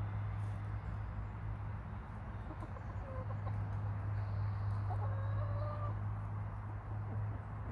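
Hens clucking softly: a short call about three seconds in and a longer drawn-out call a couple of seconds later, over a steady low hum.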